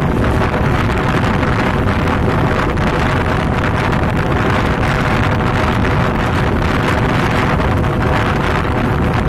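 Passenger train running at speed: a steady rumble of wheels on the rails, with wind buffeting the microphone at the open window.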